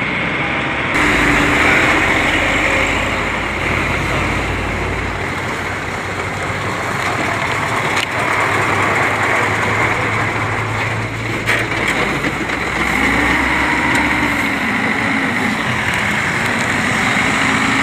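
Steady truck engine noise beside a road, with vehicles passing and the low rumble swelling and fading twice.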